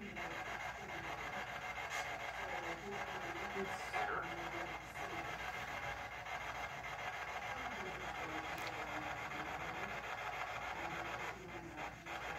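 Faint, muffled voices of people talking somewhere else in the building, under a steady hiss.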